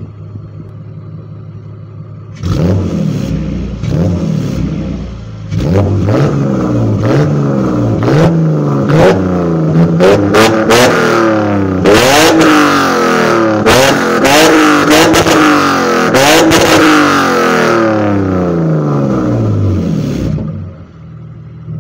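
BMW E46's engine through aftermarket Supersprint headers and a full stainless-steel exhaust, heard at the quad tailpipes: idling, then revved over and over in quick rising and falling blips, about one a second, with sharp pops among them, dropping back to idle near the end.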